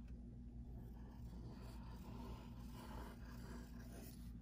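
Faint scratching of a mechanical pencil's lead on paper as a long wavy line is drawn, over a steady low hum.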